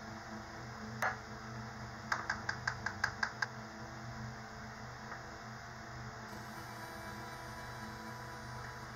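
Light taps of hard glass and plastic lab ware being handled: one knock about a second in, then a quick run of about eight taps in a second and a half, over a steady low hum.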